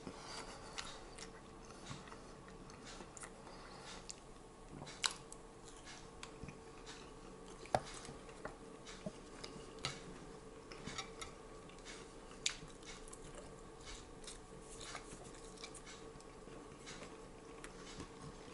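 A man chewing a mouthful of kebab meat: quiet mouth clicks and smacks, with a few sharper clicks about five, eight and twelve seconds in, over a faint steady hum.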